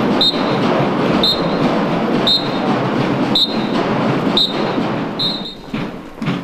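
A whistle blown in short, sharp blasts about once a second, marking the marching step, over a steady outdoor din.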